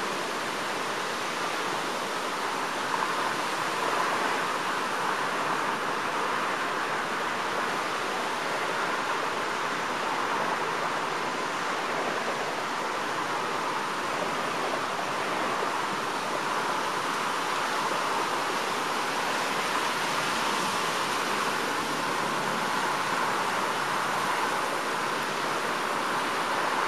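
Strong wind rushing steadily through the treetops as a continuous hiss, swelling slightly now and then.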